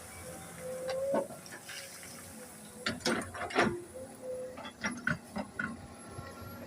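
Excavator at work: a faint steady whine under several sharp metallic clanks and knocks, bunched around the middle.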